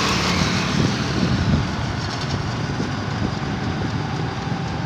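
Steady wind and road noise from a motorbike moving along a busy road, with the rumble of traffic.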